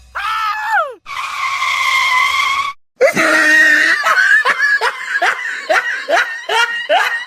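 High-pitched voice: a short falling cry, then a held cry, then a fast run of short rising yelps, about three a second.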